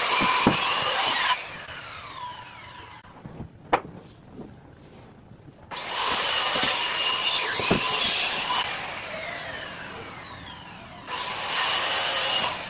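Electric power tool cutting wood in three loud bursts: about the first second and a half, from about six to eight and a half seconds, and again near the end. After each cut the motor winds down with a falling whine, and a couple of sharp knocks fall in the quieter gaps.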